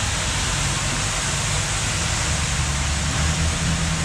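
Steady rush of a waterfall pouring down close by, with a low rumble underneath; it fades away near the end.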